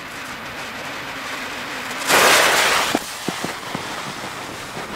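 A firework fuse being lit with a jet-flame lighter: a steady hiss that swells to a loud hiss for about a second and cuts off sharply, then a few short clicks.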